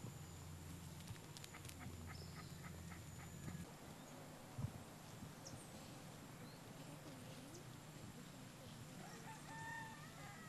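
A rooster crowing faintly near the end, a few arching calls, over quiet open-air ambience.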